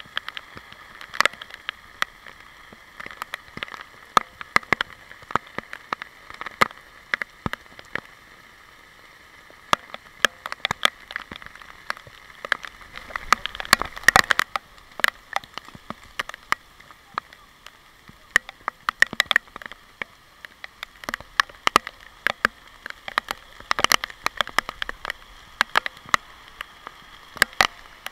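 Heavy rain heard through an action camera's waterproof housing: a steady hiss of downpour with raindrops striking the housing as many irregular sharp taps.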